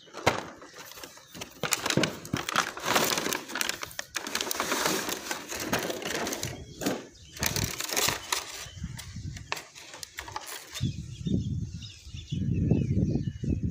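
Clear plastic packaging crinkling and crackling as it is handled. Near the end there are low, muffled bumps of handling.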